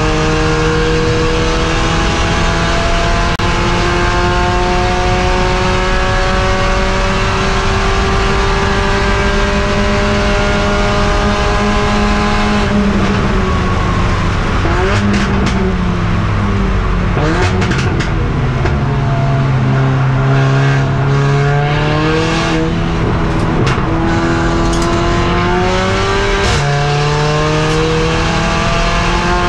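Onboard sound of a Mercedes CLA45 AMG race car's turbocharged four-cylinder at racing pace. The engine climbs slowly in one gear for about twelve seconds, then backs off and drops through downshifts under braking, runs low through a corner, and climbs again with an upshift near the end. Sharp knocks come through during the braking and cornering.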